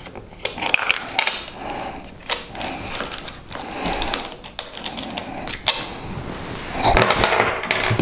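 Battery cable leads and their terminal nuts being worked off the threaded posts of 12-volt deep-cycle batteries by hand: a run of small metallic clicks and clinks with scraping.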